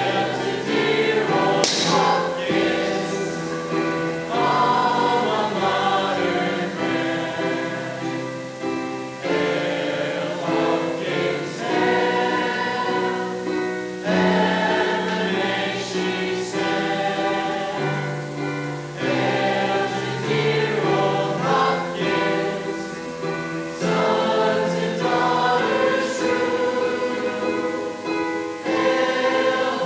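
A mixed school chorus of teenage voices singing the school's alma mater, in phrases with short breaths between them.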